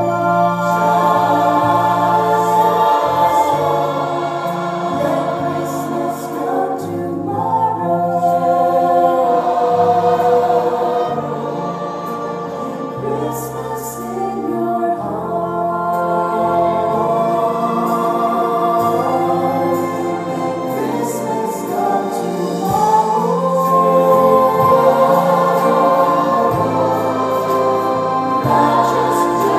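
Live duet: a woman and a man singing into microphones, backed by a choir and instrumental accompaniment that includes strings.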